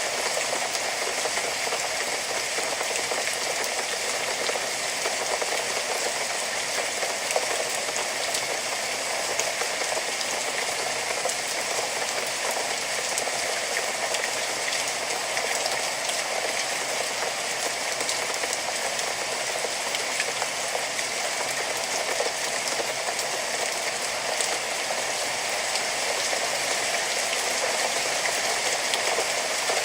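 Steady rain falling, a dense even hiss with many small drop ticks and no change in strength.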